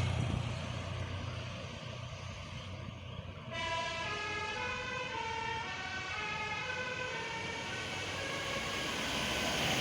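Multi-tone Basuri telolet bus horn playing a melody of short stepped notes, starting about three and a half seconds in, over a low bus engine hum. A rising rush of noise builds near the end.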